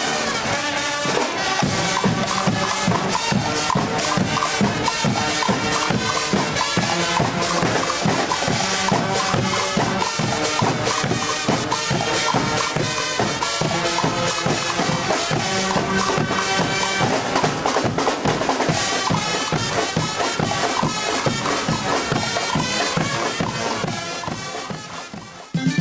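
Music with a steady drum beat and a melody, fading out near the end.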